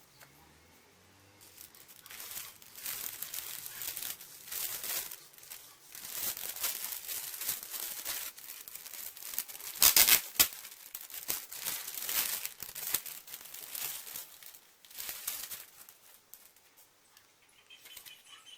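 Packaging being handled and unwrapped, crinkling and rustling in irregular bursts, with a brief louder tear about halfway through.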